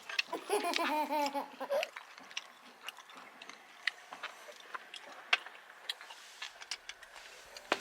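A brief laugh lasting about a second, then scattered light clicks and taps of utensils and dishes during a meal.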